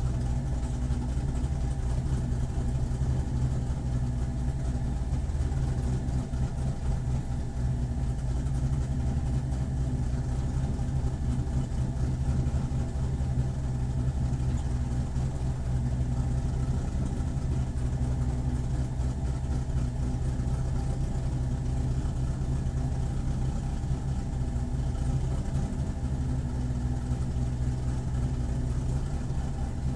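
Corvette C7 racecar's V8 engine idling steadily at an even pitch, with no revs.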